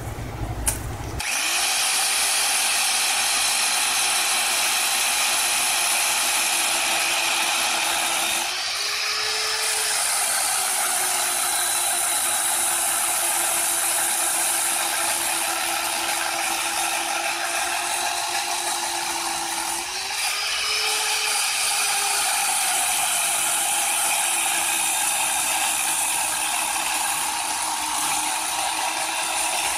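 Worx WG305.1 14-inch electric chainsaw running and cutting through a thick branch, a steady motor whine with chain noise. The motor pitch rises briefly twice, about 9 and 21 seconds in.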